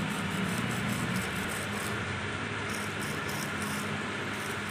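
Steady low hum over a noisy background, with faint, irregular light scraping and tapping of a steel hand tool working over a welded steel hinge.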